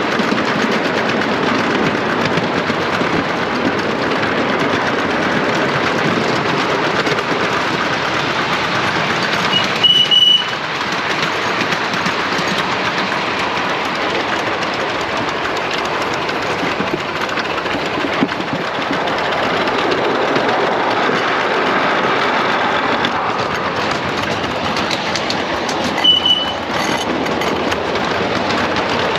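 Ride-on miniature steam railway rolling along, a steady rattle and clatter of the small passenger cars on the track. Twice a short, loud sound with a high tone breaks in, about ten seconds in and again near the end.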